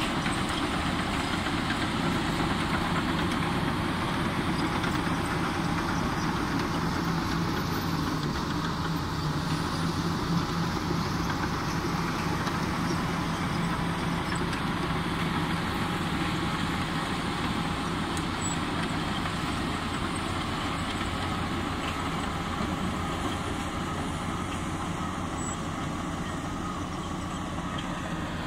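Komatsu D85E-SS crawler bulldozer's diesel engine running steadily at working revs as the dozer tracks back and forth pushing and levelling soil with its blade. A continuous low drone that eases slightly near the end.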